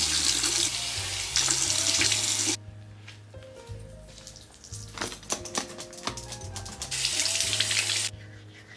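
Water running, on for about two and a half seconds, then off, then on again for about a second near the end. Background music with a steady low bass plays throughout.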